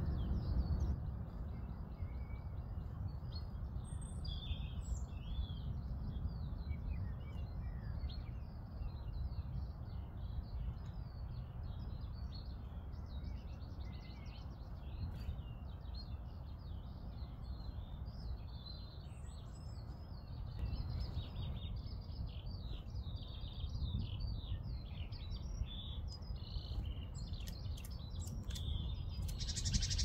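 Wild songbirds chirping and singing in a garden: many short, high chirps and trills overlapping, busier in the second half, over a steady low background rumble.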